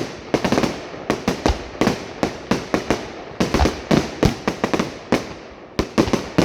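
Fireworks display: a rapid barrage of shell bursts, several sharp bangs a second with crackling between them, thinning briefly about five seconds in before another dense volley.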